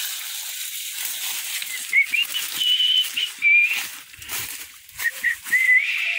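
Dry grass and leaves rustling close to the microphone as it is carried through the vegetation. Short wavering whistled notes sound about two seconds in and again near the end.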